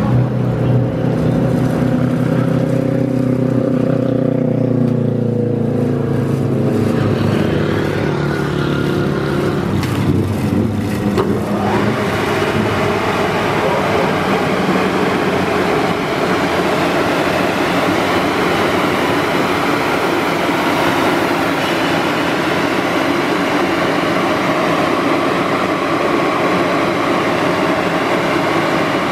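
Ceccato Aries rollover car wash in its brush pass: a low motor hum with gliding tones for the first dozen seconds, then, from about twelve seconds in, a steady rushing hiss of the spinning brushes and water spray on the car.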